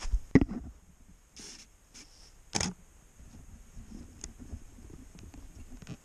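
Handling noise from a camera gripped close to the microphone: a few sharp knocks and bumps, loudest just after the start and about two and a half seconds in, then faint irregular crackling.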